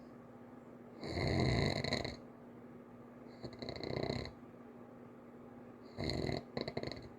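A sleeping child snoring lightly: three snores about two and a half seconds apart, the first the loudest and the last broken up. A faint steady hum runs underneath.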